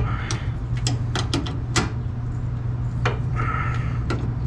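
Irregular sharp metal clicks and clinks of a wrench on the fuel filter's line fittings as they are snugged tight, with a short scrape a little past three seconds in, over a steady low hum.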